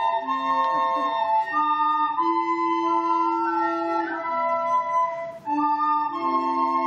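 Recorder ensemble playing a slow piece in several parts at once, moving through long held chords with an organ-like tone. A brief break comes about five and a half seconds in before the chords go on.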